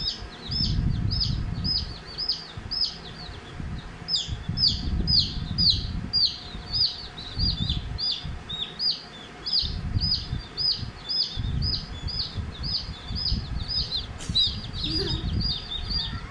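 A baby chick peeping over and over, about three short downward-sliding peeps a second, over low uneven bumping and rustling.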